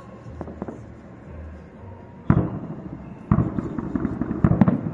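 Fireworks display: aerial shells bursting. Faint crackling gives way to one sharp bang about halfway through, then a quick run of bangs and crackles near the end.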